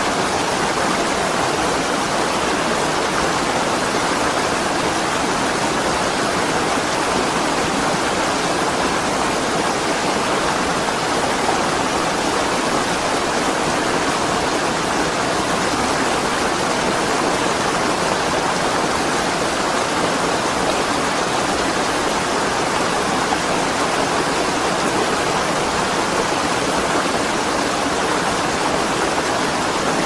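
Flowing water rushing steadily, an even, unbroken sound with no splashes or breaks.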